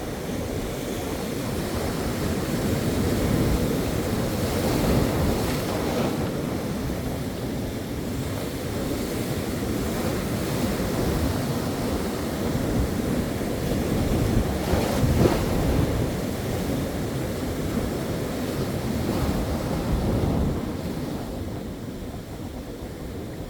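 Ocean waves breaking and washing in, a continuous surf that swells and eases as sets arrive, with wind buffeting the microphone.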